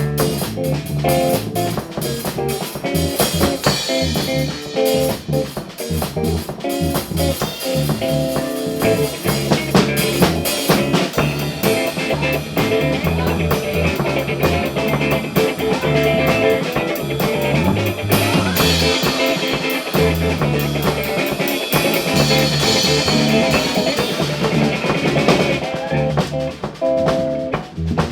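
Live rock band playing: a drum kit with snare and cymbal hits keeping a steady beat under guitar and bass.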